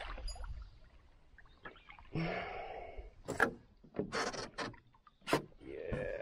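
Sharp knocks and rubbing in an aluminium-free canoe setting: a few hard knocks against the canoe, with rustling stretches before and after, while a hooked largemouth bass is being landed.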